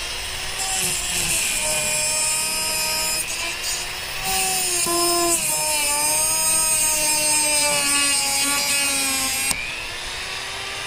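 Dremel rotary tool with a thin cutoff wheel cutting into the heads of rusted screws. The motor whine sags and recovers in pitch under load beneath a harsh grinding hiss. The grinding stops suddenly about nine and a half seconds in, leaving the motor spinning.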